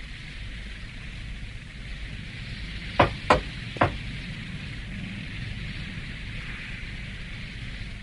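Three sharp impacts in quick succession, about three seconds in, over a steady hiss and low rumble.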